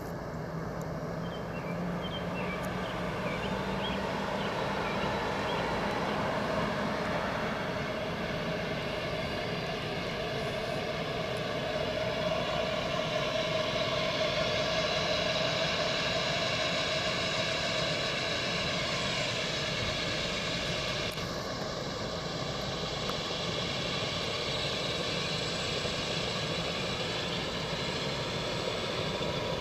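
Medical helicopter's turbine engine running up on the pad, a steady whine with the main rotor spinning up toward flight speed.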